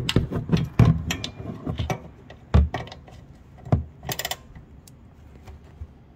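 Socket ratchet tightening a motorcycle's oil drain plug: irregular metal clicks and knocks, with a short fast ratcheting rattle about four seconds in.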